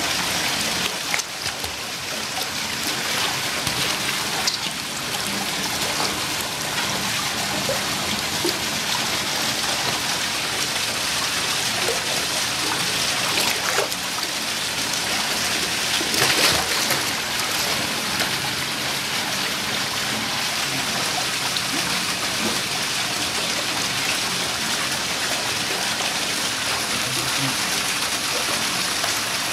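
Steady rush of running water, with splashing from two Eurasian otters wrestling in a shallow pool; the splashing is loudest about sixteen seconds in.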